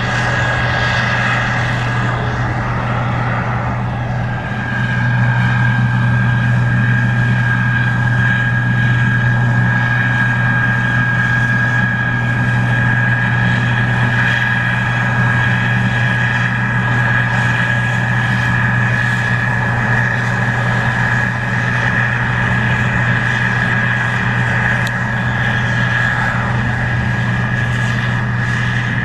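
Case IH 2388 Axial-Flow combine running steadily while harvesting corn: a low diesel drone with a steady high whine above it. It grows louder about five seconds in.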